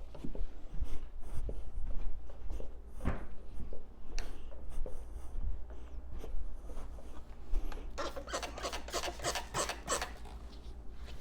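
Carpet pile being groomed: repeated rasping strokes through the fibres, coming fast and close together, about five a second, in the last three seconds.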